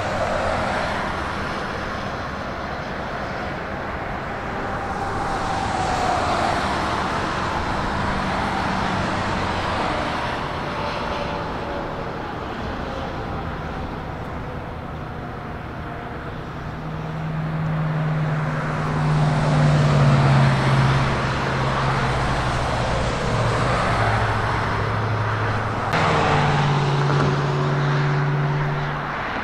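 Steady engine noise from passing vehicles, with a slowly falling whine in the first half and a low drone that grows louder about two-thirds of the way through and again near the end.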